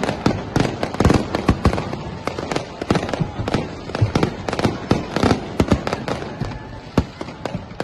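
Fireworks going off in a dense, irregular barrage of sharp bangs, several a second, as aerial shells burst overhead.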